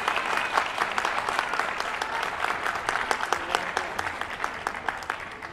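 Audience applauding with many hands clapping, dying away near the end.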